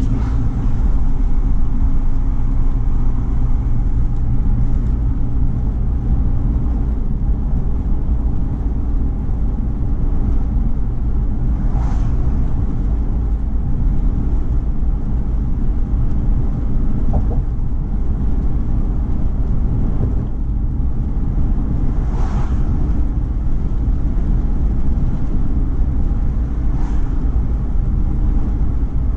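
Car cruising at highway speed: a steady low rumble of tyres on the road and engine drone, with three brief swells of hiss over it.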